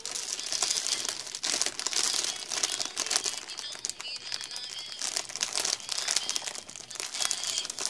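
Plastic packaging crinkling and rustling as it is handled, in irregular bursts.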